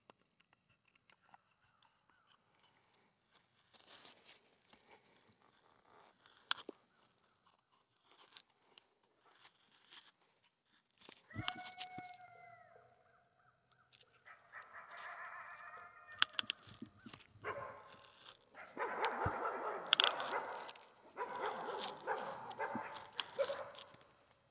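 Auger bit turned by hand with a settlers wrench, boring into the end grain of a small log: stop-start crunching and scraping of wood being cut, with sharp clicks, getting louder and more continuous in the second half. A couple of short squeaky tones come in near the middle.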